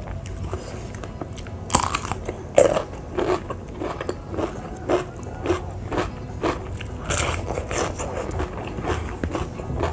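Close-miked eating of raw vegetables: loud crunching bites about two seconds in and again about seven seconds in, with steady chewing between them at about two chews a second.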